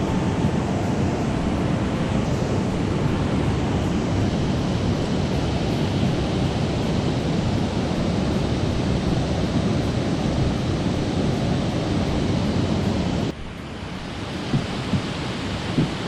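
Mountain stream water rushing steadily. About 13 seconds in it drops abruptly to a quieter rush, with a few sharp clicks near the end.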